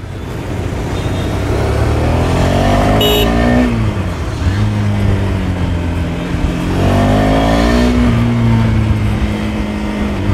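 KTM Duke 250's single-cylinder engine heard from the rider's seat, accelerating through the gears. Its pitch rises, drops at an upshift about four seconds in, rises again, then settles to a steady cruise.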